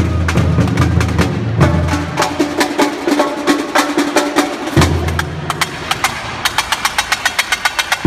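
Samba bateria drumming: big surdo bass drums struck with mallets, sharp rapid drum strokes on top and an electric bass guitar underneath. The deep bass drops away for about three seconds from about two seconds in, and near the end a fast, even run of strokes comes through.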